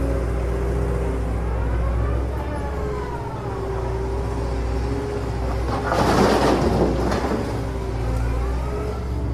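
Motor vehicle sound: a steady low engine hum with pitched tones that rise and fall, and a loud rushing burst about six seconds in.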